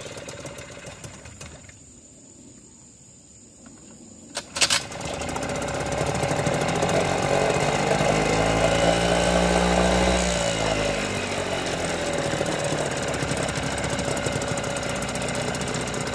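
Mercury 4.5 hp two-stroke outboard motor pull-started on choke from cold: a pull about four and a half seconds in, then it catches and keeps running. Its speed rises and then drops back about ten seconds in, settling into a steady fast run with its lower unit in a barrel of water.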